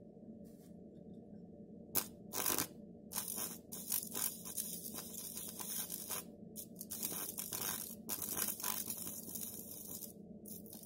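Electric arc of a homemade welder built from a UPS transformer, crackling in irregular bursts as it fuses the ends of twisted copper wires. It starts with a sharp crack about two seconds in and stops shortly before the end, over a steady low hum.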